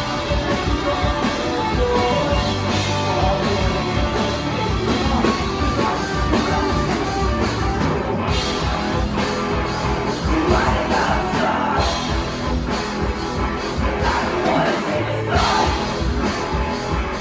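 Live rock band playing: electric guitars, bass and drums, with a voice singing over it in the second half.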